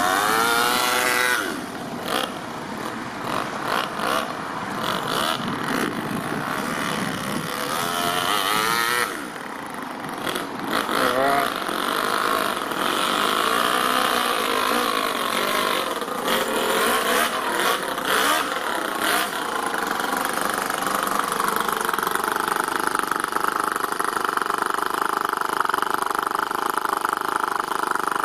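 Toyan FS-L200 two-cylinder four-stroke nitro model engine running in an RC crawler truck, revving up and down as it drives, with pitch sweeps near the start and again about ten seconds in. It settles into a steadier, even run over the last several seconds.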